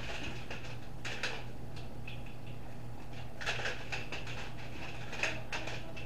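Hand pepper mill grinding peppercorns: crunchy scraping in a few short bursts as the mill is twisted.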